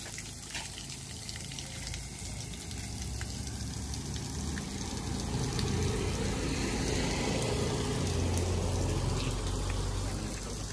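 Ballast water spraying out of a tractor tyre's valve under the tyre's air pressure: a steady hissing spray that grows louder around the middle, with a low hum underneath.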